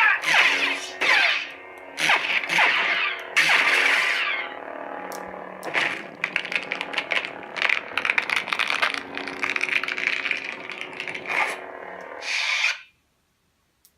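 Lightsaber sound font played by a TeensySaber V3 sound board through the saber's speaker: a steady hum with several quick swing whooshes that sweep in pitch as the blade is moved, then a longer crackling stretch. The sound cuts off suddenly about a second before the end.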